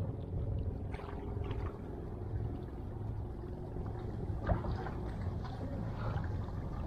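Steady low rumble of wind and sea water with a faint steady hum, broken by a few faint knocks.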